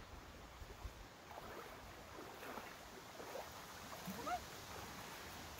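Faint lakeshore ambience: wind and small waves lapping at the shore, with a few brief faint chirps.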